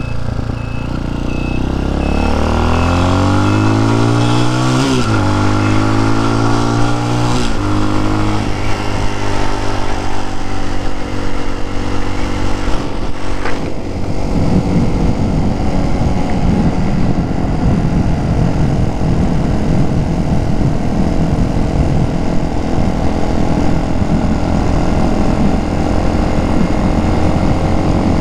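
TaoTao TBR7 motorcycle engine pulling away: its pitch rises, drops at an upshift about five seconds in, rises again and drops at a second shift around eight seconds. It then runs steadily at cruising speed, with wind rushing over the microphone from about halfway through and a single sharp click just before.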